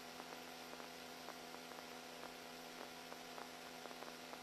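Faint steady electrical hum with light static and a few faint clicks on an idle radio audio feed, with no one transmitting.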